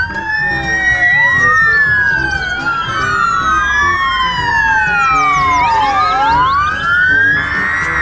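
Sirens of several fire-brigade vehicles driving past in convoy, wailing at once. Their overlapping pitches sweep slowly up and down and cross one another, over a low rumble.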